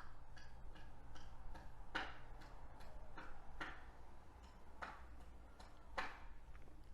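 Light irregular clicks and taps of small phone parts and tools being handled during a smartphone screen repair, about a dozen, with a few sharper ones, over a faint steady low hum.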